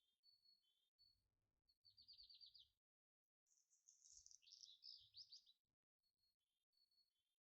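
Faint birdsong: short repeated chirps and quick trilled phrases, cutting out completely for about half a second near the middle.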